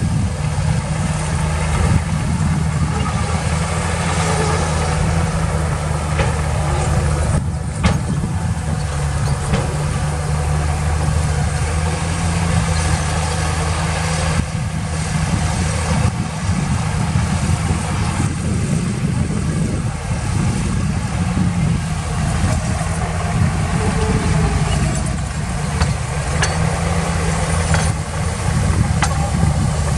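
The heavy diesel engine of earthmoving equipment is running steadily with a low, even drone. Its note shifts a few times as the load changes.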